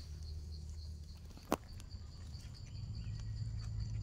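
Mushroom-picking handling noise in dry leaf litter, with one sharp click or snap about a second and a half in. A faint, steady, high insect drone continues underneath.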